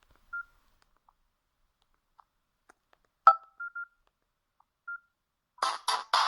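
Samsung mobile phone's short keypad beeps, all at one pitch, with a sharp click a little over three seconds in; near the end a ringtone starts playing, a loud, choppy electronic tune.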